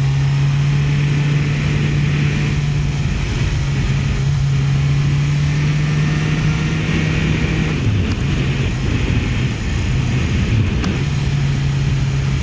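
Motorcycle engine running at a steady cruise with wind rush. Its note drops briefly about two-thirds of the way through, dips again a little later, then settles back to the same steady pitch.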